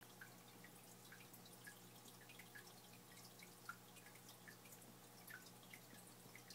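Faint, irregular drips and tiny plinks of aquarium water, several a second, over a low steady hum.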